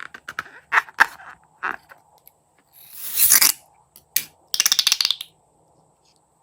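Crunchy slime being pressed and squeezed by hand: scattered sharp crackles, a swelling crackle about three seconds in, then a fast run of clicking crunches about a second later.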